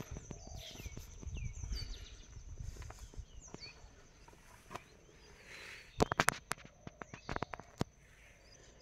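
Outdoor ambience: birds calling with short chirps that fall in pitch, over a steady high insect drone. A low rumble runs through the first few seconds, and a quick run of sharp clicks comes about six seconds in and again just after seven seconds, the loudest sounds.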